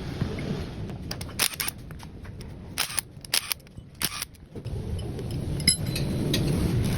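Sharp metallic clicks and knocks, about five spread over several seconds, from hand work on a steering gearbox, over a low background rumble.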